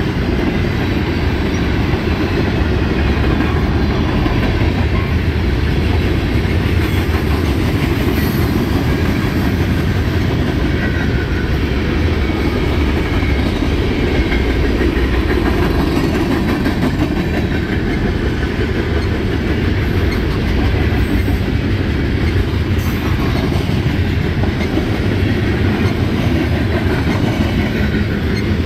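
A freight train's cars rolling past on the rails, making a loud, steady noise of steel wheels on track that does not change.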